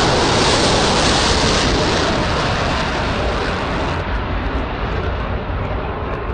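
Rocket motor of an Evolved Sea Sparrow Missile just launched from a ship's deck launcher: a loud, steady rushing noise that slowly thins and fades in its upper range as the missile climbs away.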